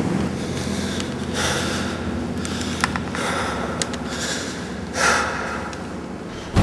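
Four heavy, noisy breaths over a low steady rumble, with two sharp clicks near the middle.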